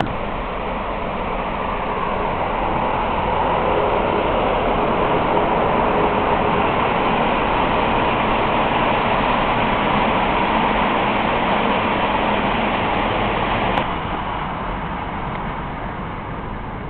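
Miniature ride-on railway train running, a steady rushing noise that swells, holds, then drops abruptly with a click near the end.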